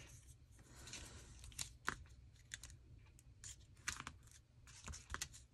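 Faint rustling and scattered light taps of paper pieces being handled and laid down for a collage.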